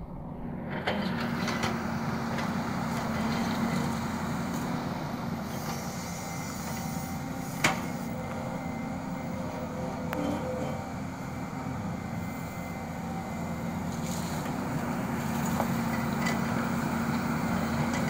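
Volvo crawler excavator's diesel engine running steadily under load as it digs and loads soil, with one sharp knock about eight seconds in.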